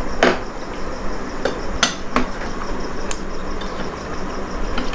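A few sharp clicks and knocks of drink cans and plates being handled and set down on a table, over a steady background hiss.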